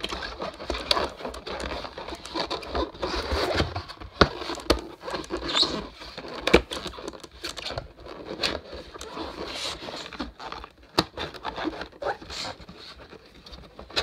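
Hands handling and folding a stiff printed panel: scraping and rustling broken by many sharp clicks and taps, the loudest about six and a half seconds in.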